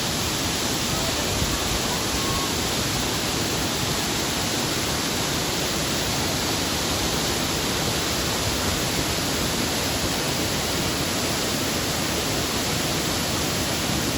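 Waterfall, close by, with water rushing in a loud, steady, even noise that does not change.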